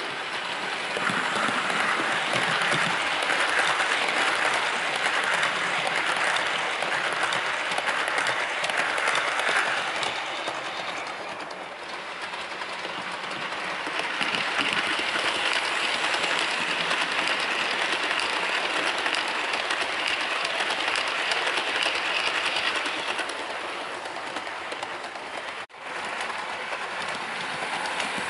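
Bachmann OO gauge Class 90 model electric locomotive and its rake of model coaches running on the layout's track, the wheels rattling over the rails. The sound swells and fades twice as the train passes, with a sudden break near the end.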